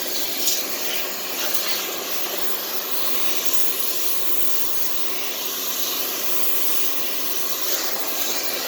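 Electric pressure washer running, its water jet spraying steadily onto a riding mower with an even hiss over a low motor hum.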